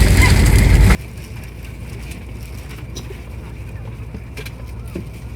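Road vehicle running with a loud low rumble that cuts off abruptly about a second in, leaving a much quieter low hum with faint voices.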